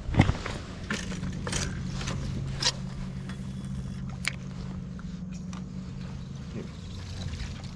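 Spinning rod and reel being worked from a bass boat: a sharp knock just after the start, then a few scattered light clicks from the reel and line. Under them runs a steady low hum that stops about six and a half seconds in.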